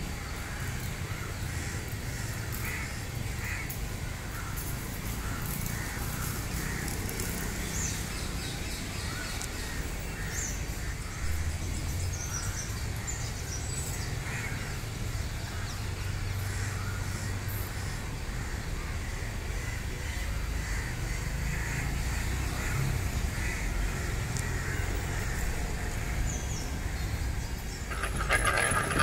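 Crows cawing now and then, with smaller birds chirping, over a steady low rumble of traffic. A louder, denser noise comes in near the end.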